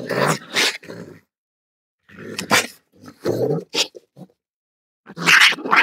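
Raccoon calling in three harsh bursts, each group about two seconds after the last.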